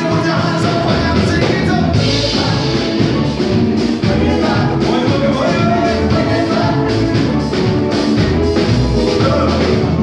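Live band playing loudly, with a singer's vocals over electric guitar and a drum kit.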